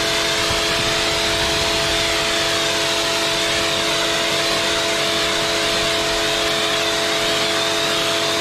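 Kärcher K4 pressure washer running under load, its motor and pump giving a steady hum of several tones, while the fan-spray jet of water hisses against a stone patio tile.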